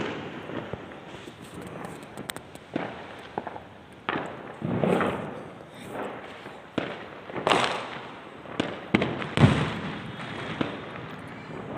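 Firecrackers bursting at irregular intervals, about ten sharp bangs that each fade quickly, the loudest about nine and a half seconds in.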